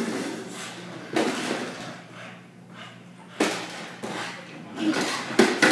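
Plastic toy lawn mower clattering and knocking on a tile floor as an English bulldog shoves it with his head. There are sharp knocks about a second in, again at about three and a half seconds, and near the end.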